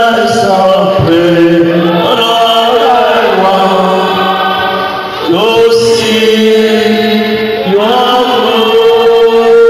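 Slow worship singing, voices holding long notes and sliding from one pitch to the next; one note is held for several seconds from about halfway.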